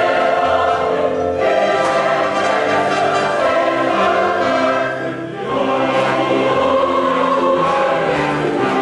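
Large mixed choir singing a sacred anthem in full held chords, with strings accompanying; the sound dips briefly at a phrase break about five seconds in.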